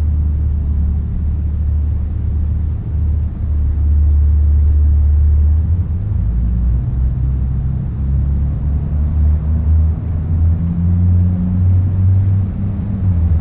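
Low, steady rumble of an approaching BNSF freight train's diesel locomotives (GE ES44C4 leading), its pitch shifting a little about halfway through and again near the end.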